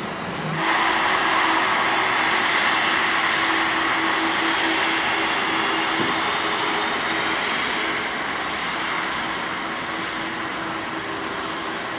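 Boeing 767 airliner's twin jet engines running at high power as it rolls along the runway: a loud, steady jet noise with a held hum and a thin high whine. It comes in abruptly about half a second in.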